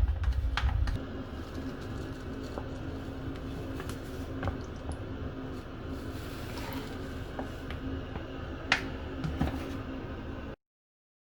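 Hitachi BD-SV110FL drum washer-dryer running: a steady motor hum with scattered light clicks, and heavy low thumps in the first second. It cuts off suddenly near the end.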